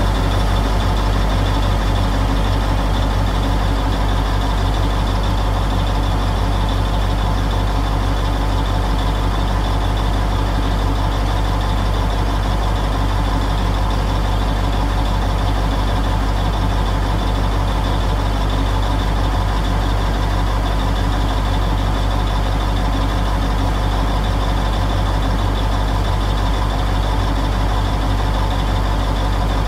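Diesel engine of a yellow earthmoving machine, heard close on board, running steadily at a constant speed with a deep hum.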